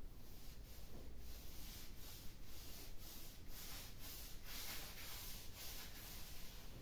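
Repeated back-and-forth rubbing strokes over a surface, about two a second, fairly faint.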